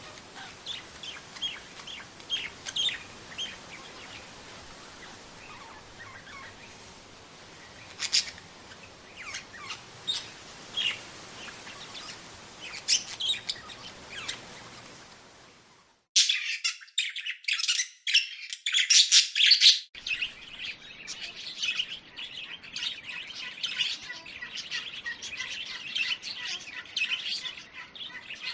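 Budgerigars chirping: scattered short chirps that fade out after about fifteen seconds, then a few seconds of loud, dense chirping, then a steady, busy chatter of many chirps.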